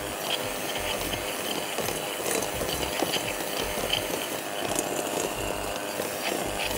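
Electric hand mixer running steadily, its beaters creaming butter and powdered sugar in a glass bowl, with a few sharp ticks now and then.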